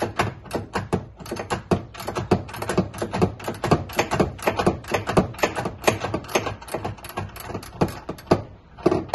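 Ratchet wrench clicking in quick strokes, several clicks a second, as a tight seatbelt mounting bolt is worked.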